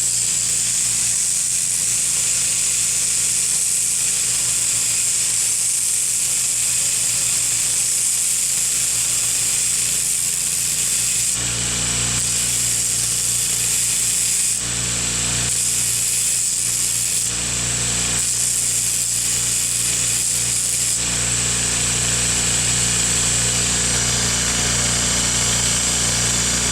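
Electric grinder grinding the upset head off the worn steel rivet of a pair of farrier's tongs: a steady motor hum with a loud high grinding hiss, its tone shifting several times in the second half as the work is pressed to the wheel.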